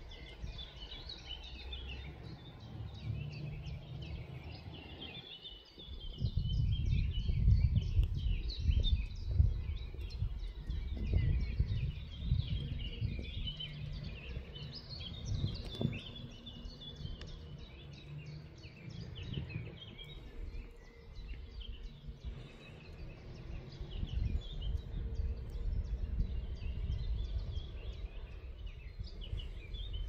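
Birds chirping and singing over a low rumble that rises and falls, louder from about six seconds in.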